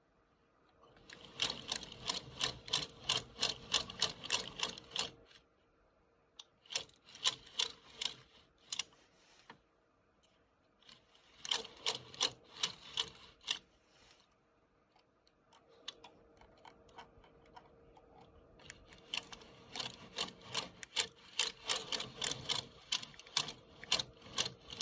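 Hand-cranked circular sock knitting machine with a ribber running, its needles clicking rapidly as they pass through the cams. The clicking comes in four bursts of a few seconds each, with short pauses between them.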